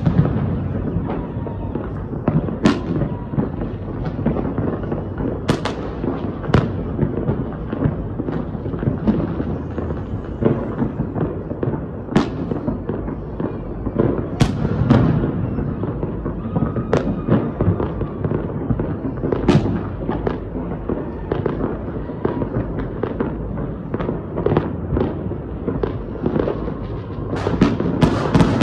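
Fireworks going off: a dense, continuous din of low booms with sharp cracks every second or two, building into a rapid flurry of crackling near the end.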